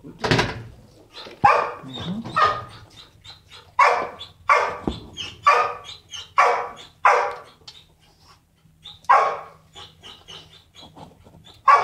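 A dog barking repeatedly: about ten single barks roughly a second apart, with a short pause about two-thirds of the way through. The barking dog is not the one seen sniffing the floor, so it is another dog in the kennels.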